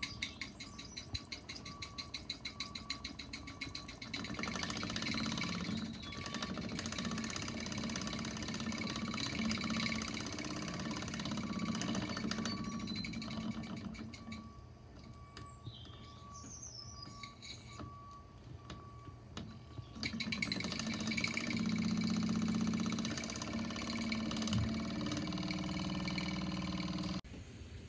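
Live-steam model traction engine running, its cylinder chuffing in a rapid steady rhythm with a hum of machinery. It quietens for several seconds about halfway through, then picks up again.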